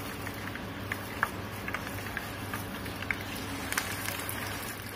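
Hot oil in a deep frying pan sizzling, with many small scattered crackles and pops. Near the end a chicken malai kebab goes into the oil to deep-fry.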